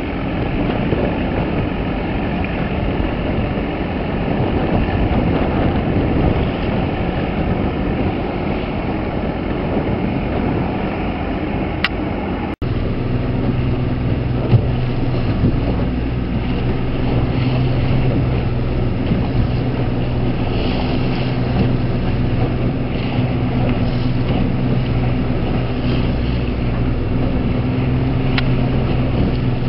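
A boat engine running steadily under wind and water noise. After a brief dropout about twelve seconds in, a steady low hum stands out.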